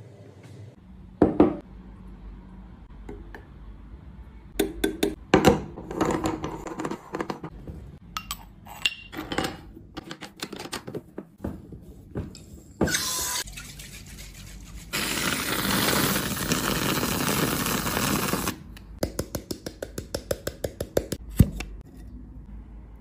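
Kitchen handling sounds: glass clinks and knocks as cream is poured into a glass measuring jug, then a metal whipped-cream siphon being charged, with gas hissing steadily into the bottle for nearly four seconds. After that comes a quick run of light clicks as metal tongs pick raisins from a glass bowl.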